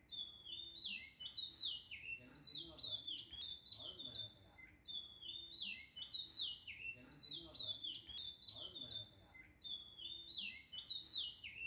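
Bird-like chirping: the same short run of falling chirps repeats about every one and a half seconds over a faint, steady high tone.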